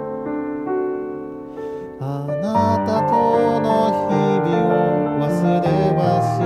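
A piano-led ballad backing track, dipping in loudness about two seconds in. A voice then starts singing the next line over the piano about half a second later.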